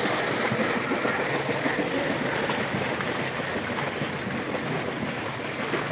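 Steady splashing and churning of pool water from a swimmer's freestyle kicks and arm strokes.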